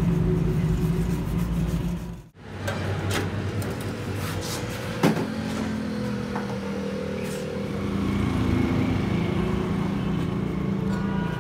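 A motor running with a steady hum, cut off briefly about two seconds in and then running on, with a single sharp knock about five seconds in.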